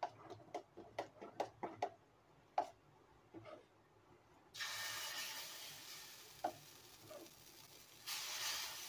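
A ladle clicking several times against the batter vessel, then millet adai batter hitting a hot dosa griddle and sizzling: a sudden hiss about halfway through that slowly fades, and a fresh burst of sizzling as more batter is poured and spread near the end.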